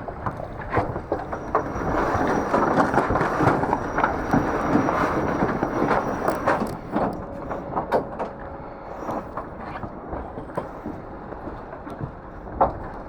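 IMOCA 60 racing yacht under way, heard onboard: a loud rush of water and wind along the hull, strongest a few seconds in, with irregular sharp knocks and bangs from the boat. A faint steady hum sets in about eight seconds in.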